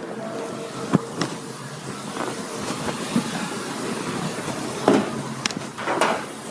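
Steady background hiss, with a handful of sharp knocks and clatters, the loudest about a second in and near five seconds in: items being handled at a work counter.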